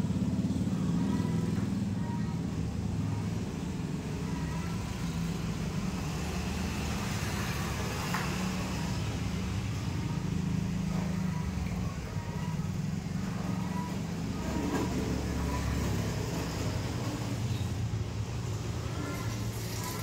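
Steady low rumble of a motor vehicle engine running, unbroken and even in level.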